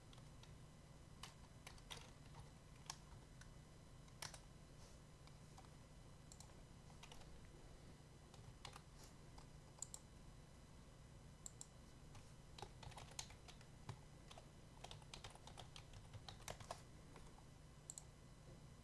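Faint, irregular keystrokes on a computer keyboard, typing a web address and login details, over a faint low hum.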